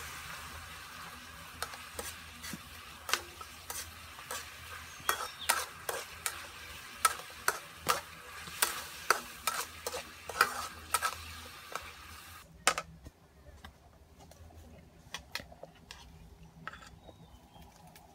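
Metal spatula stirring in a wok of frying sauce, clicking and scraping against the pan about twice a second over a steady sizzle. About two-thirds of the way through, the stirring and the sizzle stop, leaving only a few faint ticks.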